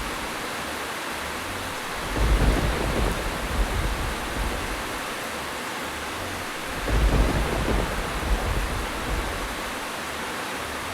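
Steady rain with low thunder rumbles that swell and fade, about two seconds in and again about seven seconds in, roughly every five seconds.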